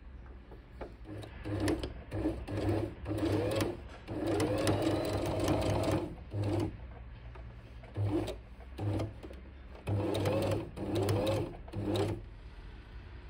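Electric sewing machine stitching through felt in a series of short stop-start runs, its motor pitch rising as each run speeds up. The longest run lasts about two seconds, and the stitching stops about a second before the end.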